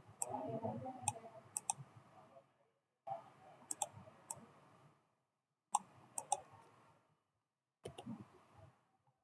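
Computer mouse clicking, single clicks and quick double clicks every second or so, over a faint background hiss that cuts in and out.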